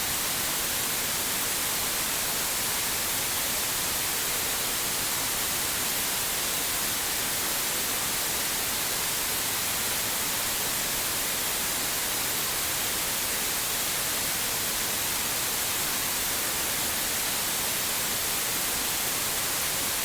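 Digitally generated white noise: a steady, even hiss strongest in the high frequencies, with no change in level.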